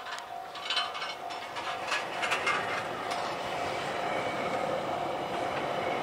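An electric express train passing at speed through snow: wheels clacking over the rail joints in the first half, then a steady rushing noise as the rear cars go by, with a steady tone held throughout.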